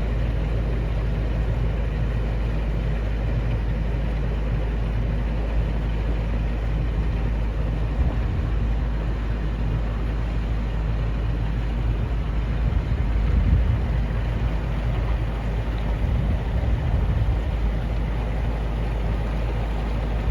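Narrowboat engine running steadily as the boat cruises along the canal: a continuous low rumble. It swells a little now and then past the middle.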